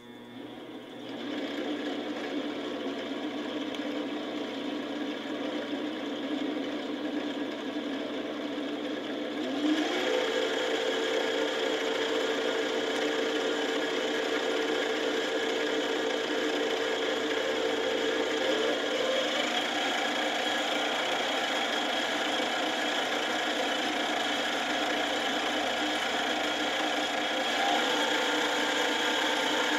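Sieg X3 milling machine's spindle motor and gear drive running without cutting: it starts about a second in and is stepped up in speed three times, about 200 RPM rising to about 1800 RPM, its steady whine jumping higher in pitch at each step.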